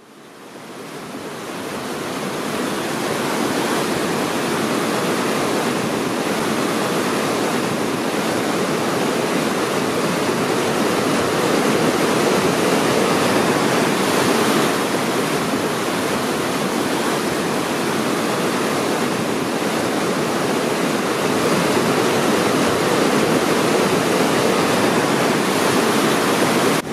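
River rapids rushing over rocks: a steady wash of water noise that fades in over the first few seconds.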